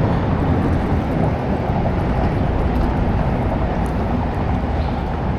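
Steady rushing, fluttering wind noise on the microphone.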